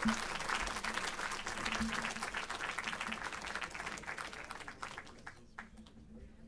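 Audience applauding, the clapping thinning out over the last couple of seconds to a few scattered claps before it dies away.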